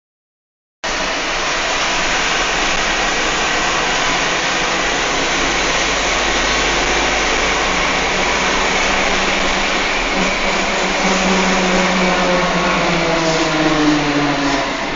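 Steady rushing road and wind noise heard from inside a moving car, with the car's engine running under it. It starts about a second in, and near the end a low engine hum slowly falls in pitch.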